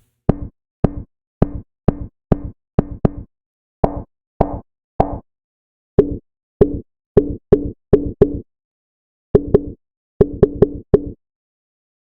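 A synthesized drum hit made from a slice of noise recording, a grass cutter with wind, played over and over at uneven spacing, some in quick runs. Its low-pass filter is set to a low cutoff with high resonance and the hit fades quickly, so each stroke comes out as a short, pitched, boomy tone. A few hits in the middle are brighter as a control is turned.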